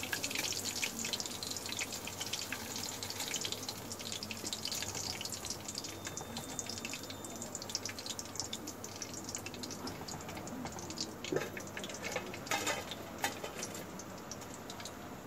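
Hot oil sizzling and crackling in a kadhai as deep-fried, breadcrumb-coated chicken pieces are lifted out with a wire mesh skimmer, the crackle easing off gradually. A few sharper clicks of metal utensils stand out near the end.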